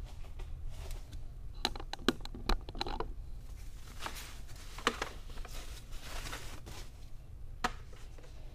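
Thin foam packing sleeve rustling and crinkling as it is slid off by hand, with scattered sharp crackles in clusters.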